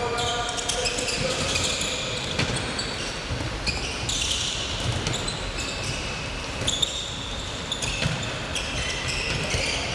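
Handballs bouncing and thudding on a wooden sports-hall floor, with many short, high-pitched squeaks of players' sports shoes as they sprint and change direction, echoing in the large hall.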